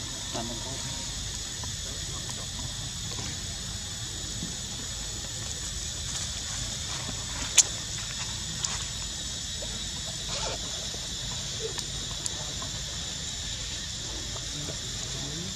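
Steady high insect drone, with a low outdoor rumble underneath and a few faint ticks; one sharp click about halfway through stands out as the loudest moment.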